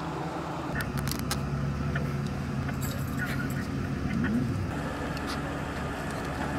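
A vehicle engine idling with a steady low hum, with scattered light clicks and jingles over it.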